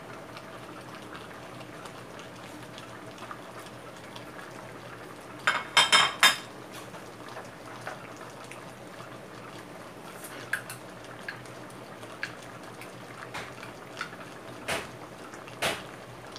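A pot of curry simmering on a gas stove, a steady bubbling with small scattered pops in the second half. About five and a half seconds in, a metal ladle clanks against the pot four or five times in quick succession, each strike ringing briefly.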